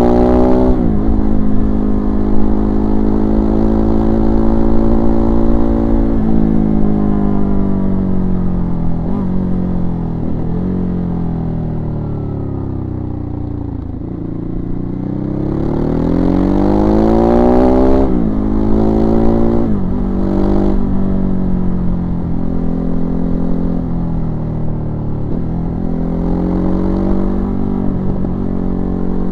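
Ducati Hypermotard 939's 937 cc L-twin engine under way, heard from on the bike: its pitch steps and slides with the throttle and several gear changes. The revs sink slowly to their lowest about halfway through, then climb steeply again.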